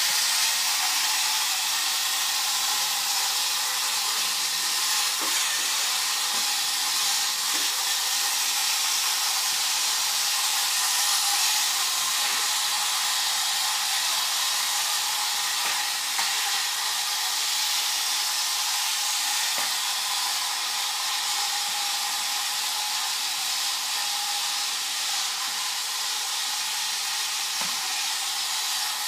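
Battery-operated 1960s Nomura tin-plate Ford Thunderbird toy car running across a wooden floor: a steady high whir from its small electric motor and gears, with a few faint clicks.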